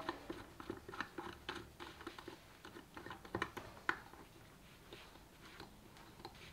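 Small plastic clicks and taps of a GoPro in its cage and the helmet's link-arm mount being handled and fitted together, with two louder clicks about half a second apart a little past three seconds in, then fewer.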